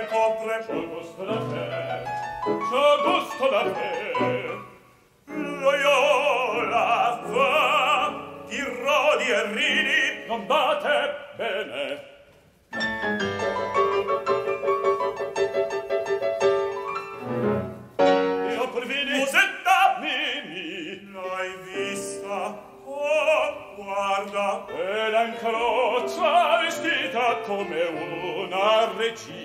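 Operatic male singing with grand piano accompaniment, broken by two short pauses.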